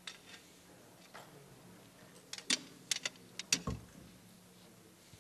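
Scattered sharp clicks and knocks of equipment being handled, bunched together in the middle, the loudest a knock about three and a half seconds in, over a faint steady hum.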